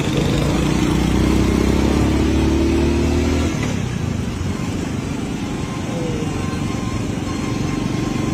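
An engine running with a steady low hum that stops abruptly about three and a half seconds in, leaving a steady rushing background noise.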